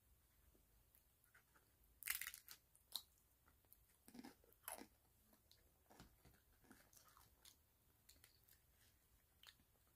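Quiet chewing and a handful of short crunches from a crispy tortilla tostada bowl shell being eaten and broken apart, the loudest crunch about two seconds in.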